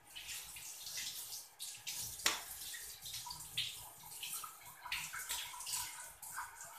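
Water heating in a metal wok, hissing with irregular crackles and ticks as small bubbles form on the bottom before it boils, with one sharp click a little over two seconds in.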